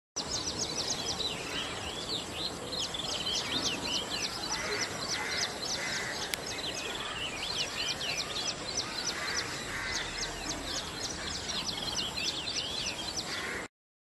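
A dense chorus of many small birds chirping, with short high chirps overlapping continuously over a steady background hiss, cutting off abruptly near the end.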